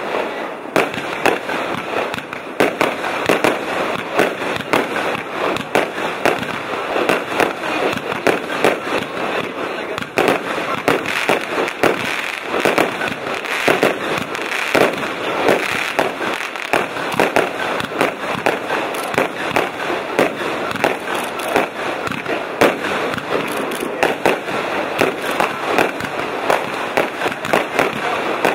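Aerial fireworks going off in a dense, unbroken barrage of bangs and crackling stars, loud throughout.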